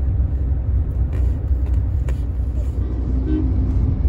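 Steady low road rumble heard inside a moving car's cabin.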